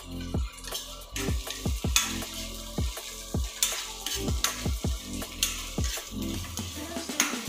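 Food sizzling in oil in a steel kadai while a spatula stirs and scrapes against the pan. A background music track's bass beat repeats about twice a second under it.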